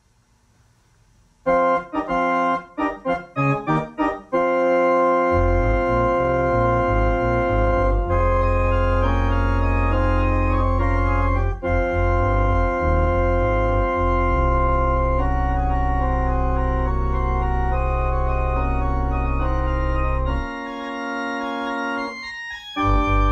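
Organ music: a few short detached chords about a second and a half in, then long held chords over a deep pedal bass, which drops out for a moment near the end.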